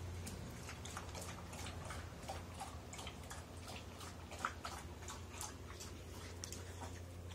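Irregular light ticks and scuffs of a puppy's paws on dirt and straw, one sharper tick about four and a half seconds in, over a steady low hum.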